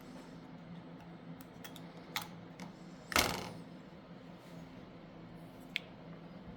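A few small sharp clicks and one louder brief knock about three seconds in, over a faint low steady hum.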